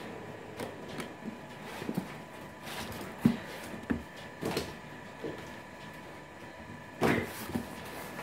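Cardboard packaging being handled: a printed sleeve slides off a brown cardboard box, with rustling scrapes and a few sharp knocks of the box, the loudest about three seconds in.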